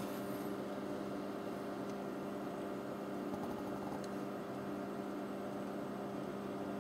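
Steady low electrical hum with a faint even hiss: the room tone of a small room, with one faint tick about four seconds in.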